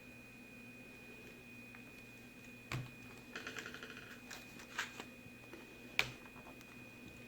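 Sharp clicks and light taps from a laptop and its plastic parts being handled, with a quick run of small ticks about three and a half seconds in and the sharpest click near the end, over a faint steady high whine.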